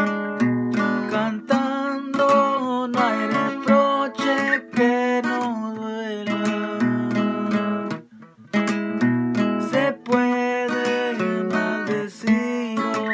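A man singing to his own strummed acoustic guitar, his voice wavering on held notes. The sound dips briefly about eight seconds in, then the strumming and singing resume.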